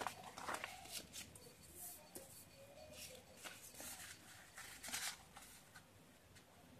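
A square sheet of origami paper rustling and crackling as it is flipped over and folded in half by hand, in a few short, sharp bursts that ease off near the end.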